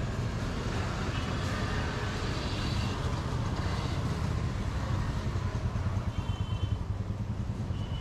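A motor vehicle engine running steadily, a low rumble.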